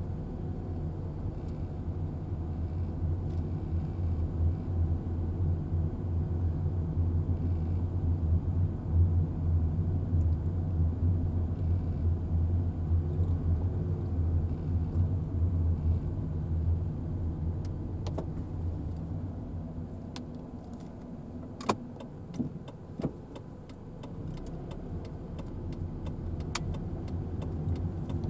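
A car being driven, a steady low rumble of engine and tyres that eases off about twenty seconds in. Scattered sharp ticks and two louder knocks come in the last part.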